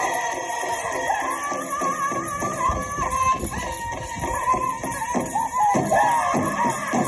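Powwow drum and singers performing a chicken dance song: high, wavering voices over a quick, steady drumbeat that grows stronger about five seconds in.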